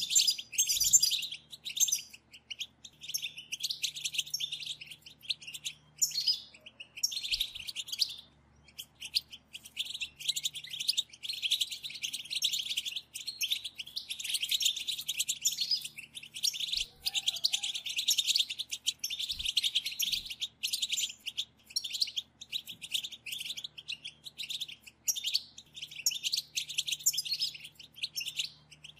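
Several European goldfinches chattering and twittering together in dense, rapid chirps, the group 'batbata' call used to stir a caged goldfinch into song, with a brief pause about eight seconds in.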